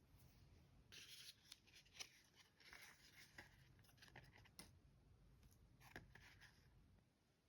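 Faint rustling and crinkling of paper and plastic stationery packaging being handled, in a few bursts with sharp little clicks, from about a second in and again near the six-second mark.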